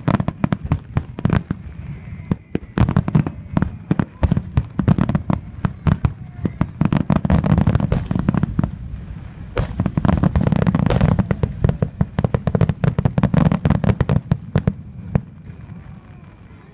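Fireworks display in a rapid barrage: many shell bursts a second over a continuous low rumble, dying away near the end.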